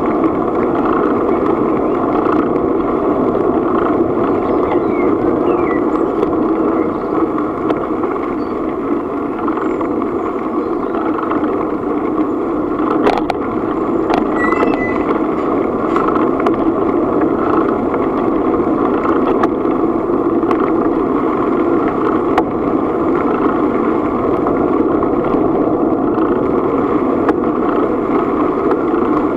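Steady rushing noise of riding a bicycle along a gravel path: tyres rolling over the surface and wind on the microphone, with a single click about thirteen seconds in.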